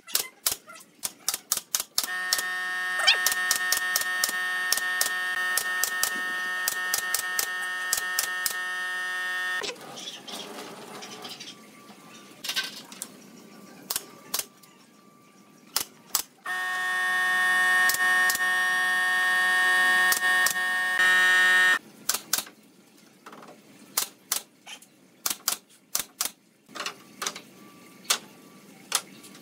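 Pneumatic nail gun firing runs of sharp shots as pallet-wood slats are nailed on. Twice a steady mechanical hum comes on for several seconds and cuts off sharply.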